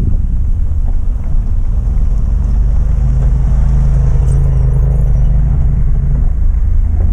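Vehicle driving slowly on a gravel road: a steady low rumble of engine and tyres. For a few seconds in the middle a steady engine hum joins it as an off-road side-by-side UTV passes close by.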